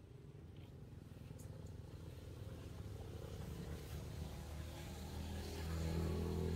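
A motor vehicle's engine running, a steady low hum that grows louder as it approaches and is loudest near the end.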